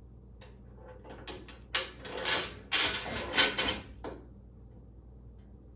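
Rear bumper being fitted onto the car body to test its fit: a run of metal clunks and scrapes over about three and a half seconds, loudest in the middle, stopping about four seconds in.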